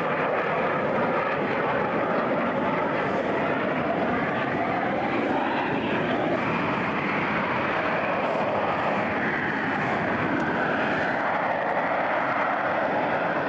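Military jet aircraft flying over, a loud, steady roar of jet engine noise that holds level throughout.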